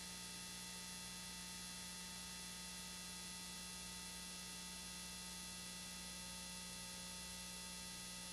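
Steady electrical hum with a faint hiss and nothing else: a recording's background noise, unchanging throughout.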